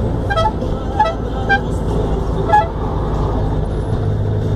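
Four short toots of a vehicle horn over the steady engine and road rumble inside a moving combi van's cab.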